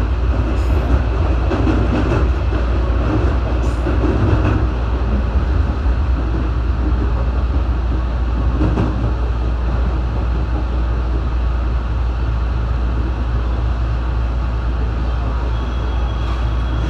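Running noise aboard a JR West 221-series electric multiple unit: a steady rumble of wheels on rail, with a few rail-joint clicks in the first few seconds. Near the end a faint high whine sets in.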